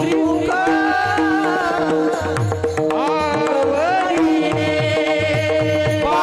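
Devotional kirtan music: a solo voice sings long, gliding held vowels over steady sustained drone notes and a regular hand-drum beat.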